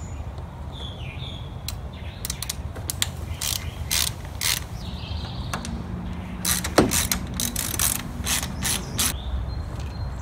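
Socket ratchet wrench clicking in quick bursts as it turns the 8 mm bolts holding a Nissan 240sx distributor cap, with one louder knock about two-thirds of the way through.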